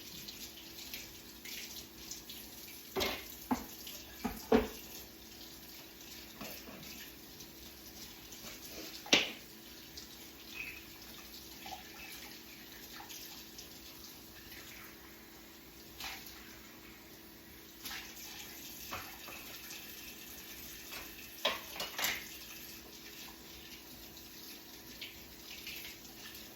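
Kitchen tap running steadily while juicer parts are rinsed under it, with a few sharp knocks of the parts against each other or the sink.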